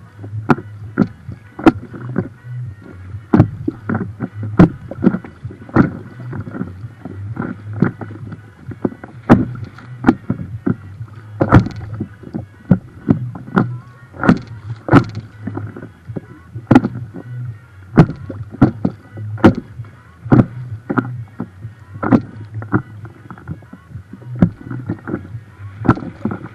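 River chop slapping against a boat's hull close to the microphone: sharp, irregular slaps about one to two a second over a steady low hum.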